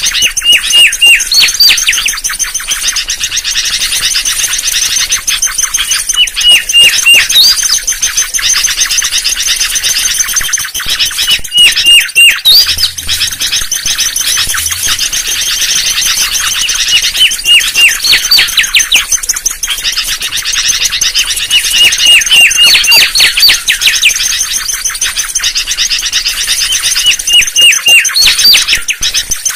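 Mangrove whistler singing: loud whistled phrases repeated every five seconds or so, each a quick run of short notes followed by an upslurred whistle. A steady high-pitched chatter runs underneath.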